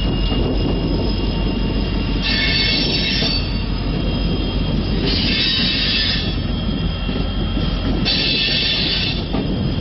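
Loaded railroad flatcars rolling slowly past with a steady low rumble, their wheels giving a short high squeal about every three seconds, three times.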